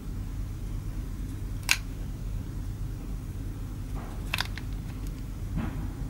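Handling noise from a Bostik hot glue gun laying glue onto a wooden coffee stirrer: a sharp click about two seconds in and a quick pair of clicks a little after the middle, over a steady low hum.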